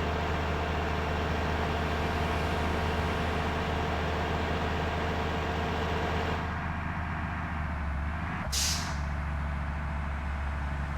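Large bus engine running steadily with road and traffic noise. The higher noise falls away about six and a half seconds in, and a short hiss of air brakes comes about eight and a half seconds in.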